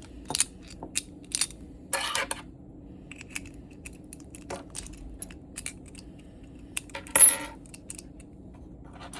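Lever-lock picking tools working inside a Squire 660 four-lever padlock: scattered small metallic clicks and ticks, with a louder metal clatter about seven seconds in.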